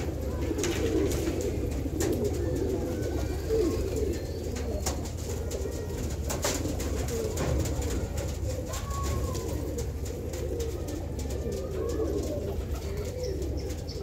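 A large flock of domestic pigeons cooing together in a dense, overlapping murmur, with scattered sharp clicks among them.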